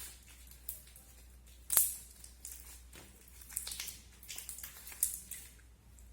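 Clear slime coloured with orange liquid chalk being squeezed and stretched by hand: irregular sticky clicks and crackles, the sharpest about two seconds in.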